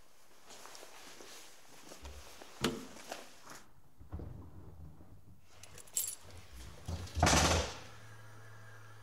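Scattered clicks and knocks of handling, with a louder thump or scrape lasting about half a second a little after seven seconds in, then a faint low steady hum.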